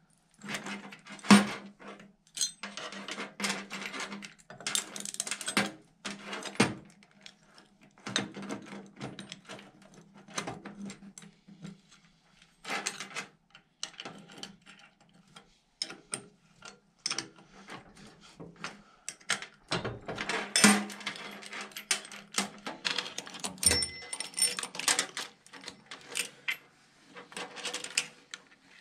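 Metal saw chain and winch parts clinking and rattling as they are handled and fitted together, a run of irregular clicks and clatters with louder knocks about a second in and about twenty seconds in.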